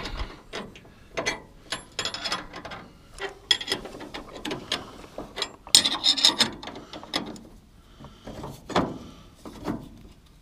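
Wrench ratcheting in irregular runs of clicks as a bolt is turned in to fasten a steel bracket to a truck frame, with light metal-on-metal clinks.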